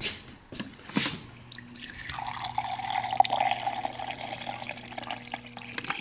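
Refrigerator door water dispenser filling a plastic cup. After a few knocks in the first second, a low steady hum starts and water streams into the cup, stopping just before the end. This is the dispenser's feed from a newly installed reverse osmosis system that is still being flushed.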